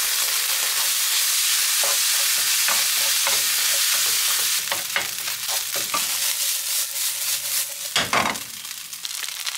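Fried rice with sausage and vegetables sizzling steadily in a hot non-stick frying pan, then, from about halfway through, stirred and tossed in short scraping strokes, one louder stroke near the end.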